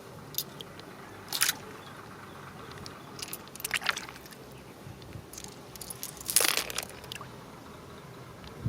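Hard shells clicking and crunching as they are handled and pried at, in a few short bursts of sharp clicks and scrapes about two to three seconds apart, the last one the loudest.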